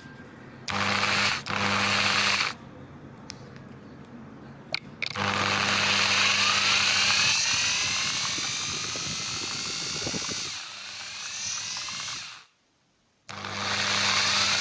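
Small electric drill grinding into a stick of chalk, running in bursts. There are two short runs near the start, then a long run of several seconds, then it cuts off suddenly and starts again near the end.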